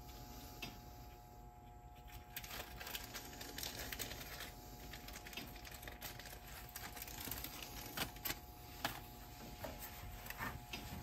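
Faint clicks, taps and rustling of small parts being handled by hand on a workbench, with two sharper ticks about three-quarters of the way through.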